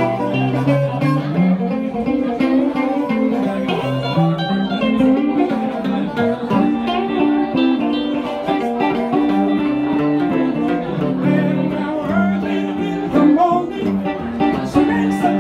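Live blues played on two amplified hollow-body electric guitars, one a Gibson ES-175, with an amplified harmonica played through a microphone; the notes run continuously, with some bent pitches.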